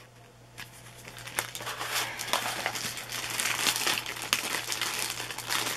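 Clear plastic sleeve around a rolled diamond painting canvas crinkling and rustling as hands handle it, starting about half a second in and going on as an irregular stream of crackles.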